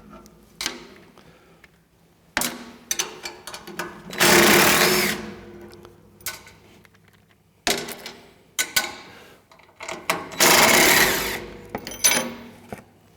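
Impact driver spinning the nuts off the skid pad's bolts in several short bursts of about a second each, the two loudest about four and ten seconds in.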